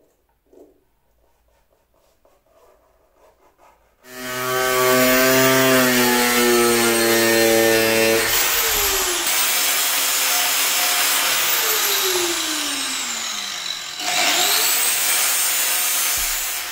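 Angle grinder starting up about four seconds in and cutting a plastic sheet. Its whine drops in pitch about halfway through as it bites into the plastic, dips and rises again near the end, then stops.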